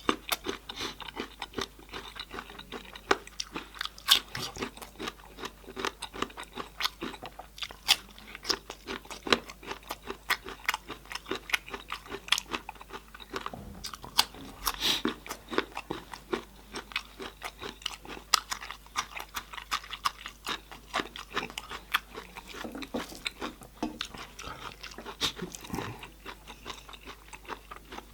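A person chewing and crunching food close to the microphone: a dense, continuous run of quick wet clicks, smacks and crunches.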